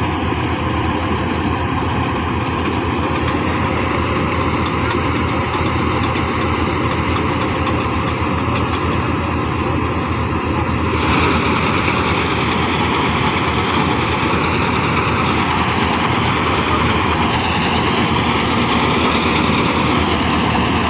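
Kartar combine harvester's engine and machinery running steadily; about halfway through the sound gets brighter and a little louder.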